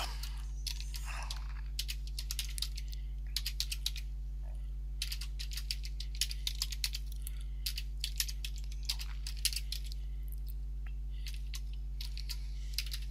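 Typing on a computer keyboard: irregular runs of key clicks with short pauses between them, over a steady low hum.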